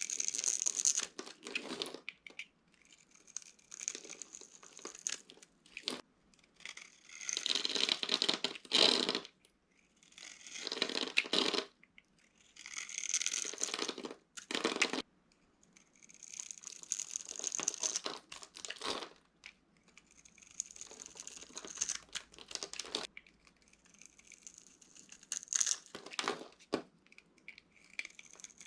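Dry soap being crushed, crunching and crackling in repeated bursts every second or two with short pauses between.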